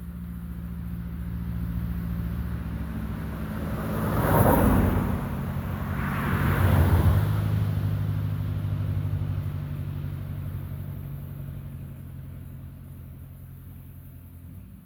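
A motor vehicle going by: a low engine hum builds up, two louder rushes come about four and a half and seven seconds in, and it slowly fades away.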